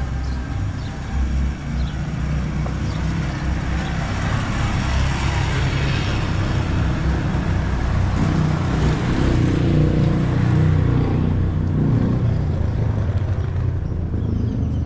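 Street traffic: a motor vehicle's engine running close by over a steady hiss of road noise, the engine growing louder from about eight to eleven seconds in as it passes.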